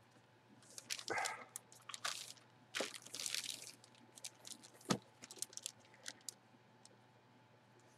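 Clear plastic bag crinkling as gloved hands press and smooth a jersey sealed inside it: irregular rustling bursts, busiest in the first few seconds, then scattered sharp crackles and a tap about five seconds in.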